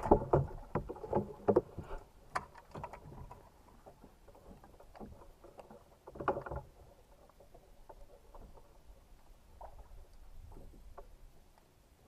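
Knocks and clatter of handling on a fishing boat, busiest in the first few seconds and again about six seconds in, then only scattered light ticks.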